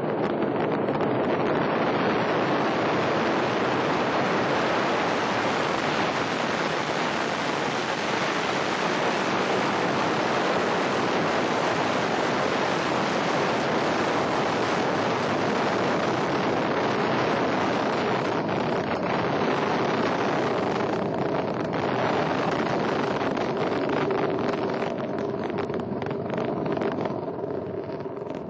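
Ariane 5 rocket at liftoff: its two solid rocket boosters and Vulcain main engine make a loud, steady rumble. Over the last several seconds it turns crackly and a little quieter.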